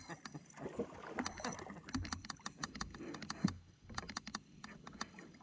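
Rapid, irregular clicking from a baitcasting reel as a hooked bass is fought and reeled in, with low knocks and water sounds beneath.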